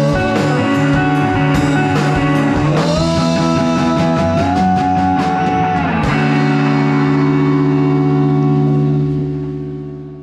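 Rock band playing live with electric guitars and drum kit: a held guitar note slides up about three seconds in, then one last hit about six seconds in leaves the final chord ringing, and it fades out near the end.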